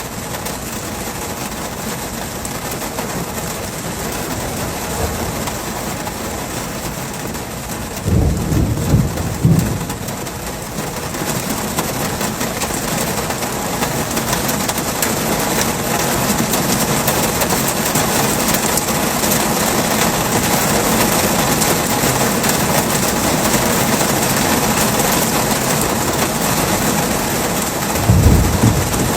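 Heavy rain falling steadily in an even hiss. Two low rumbles of thunder come through it, one about eight seconds in lasting a couple of seconds and a shorter one near the end.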